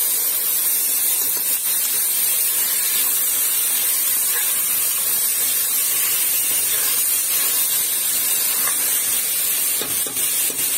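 Steady sizzling hiss of chopped tomatoes, onions and green chillies frying in hot oil, with a few faint scrapes of a metal spoon stirring in the pot.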